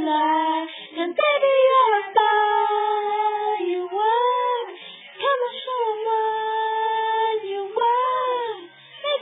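A child singing alone in long, high held notes, with no words that can be made out, several phrases each sliding up or down at the ends.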